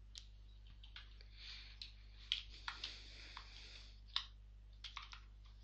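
Computer keyboard being typed on: faint, irregular keystroke clicks.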